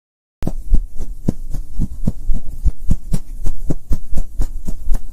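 Logo intro sound effect: a low hum pulsing with quick, even thuds, about three to four a second. It starts about half a second in and cuts off suddenly at the end.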